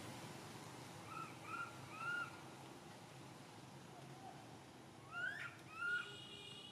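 Infant macaque crying with short, clear coos: three quick arched coos about a second in, then two louder ones, the first sweeping upward, about five seconds in. A steady high tone comes in near the end.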